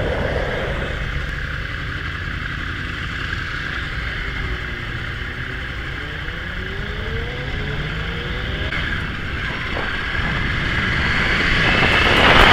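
Yamaha R1 sportbike's inline-four engine heard from an onboard camera while riding out along the pit lane, under a steady rush of wind noise. A few rising engine notes come through in the middle, and the sound grows louder towards the end as the bike speeds up.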